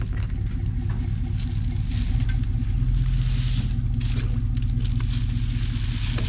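Pickup truck engine running under load while pulling on a strap, its pitch stepping up a little about two seconds in as it revs. A hiss swells and fades in the middle.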